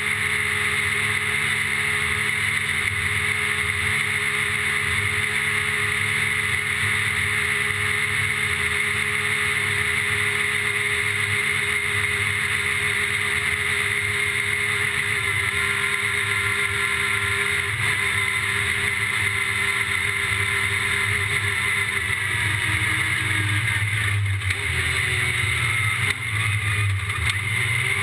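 Yamaha YXZ1000R's three-cylinder engine running at steady revs, with a brief change in revs about 24 to 26 seconds in.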